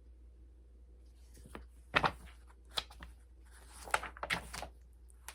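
Pages of a picture book being handled and turned: paper rustling with several sharp clicks and knocks, starting about a second and a half in and strongest around two and four seconds in.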